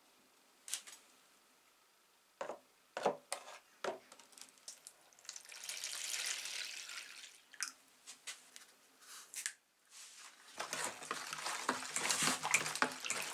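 A few knocks as things are handled in a plastic tub, then water poured from a hose into the tub for about two seconds. Near the end the water is stirred and splashed with a wooden stick.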